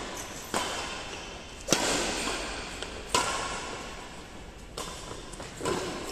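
Badminton rackets striking a shuttlecock during a doubles rally: about five sharp hits, roughly one every second or so, each echoing in a large hall.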